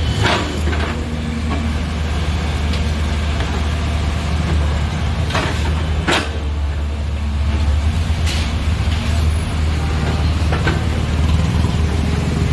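Heavy diesel engine of an excavator loading mud into a dump truck, running steadily at a low drone, with about five short sharp knocks or hisses scattered through it.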